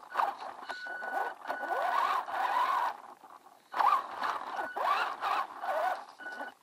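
Electric motor and geared drivetrain of a WLtoys 10428 RC truck whining as it is throttled in bursts, its pitch rising and falling with speed, with a short break about halfway through. Heard close up from a camera mounted on the truck.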